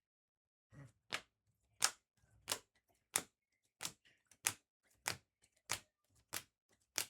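Trading cards being set down one after another on a table, each making a sharp click, about one every two-thirds of a second.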